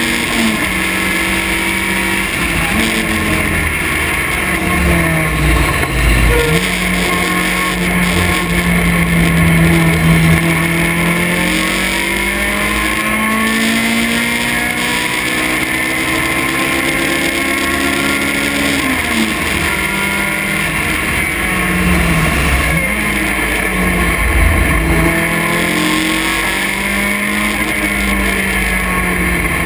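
Vintage race car's engine at race pace, heard from its open cockpit. The revs climb steadily and fall off sharply several times as it works through gears and corners, over a constant rush of air and road noise.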